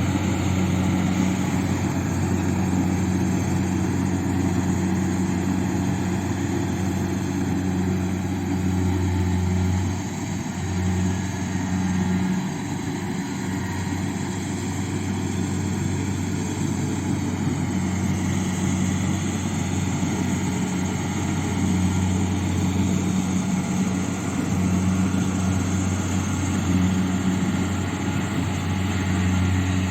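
Kubota rice combine harvester running steadily, its diesel engine giving a constant low note with machinery noise above it, easing slightly for a couple of seconds about ten seconds in.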